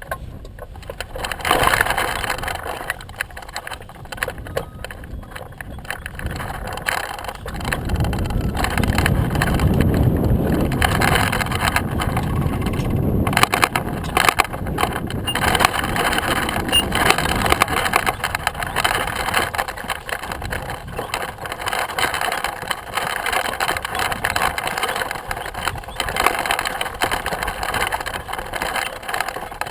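Washing machine running with a continuous noisy mechanical churn, its deep rumble swelling for several seconds from about a quarter of the way in and easing briefly before it goes on.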